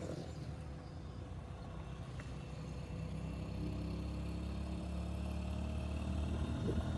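Small engine of a motorcycle loader rickshaw running as it drives along a road, a steady low hum with road noise that slowly grows louder.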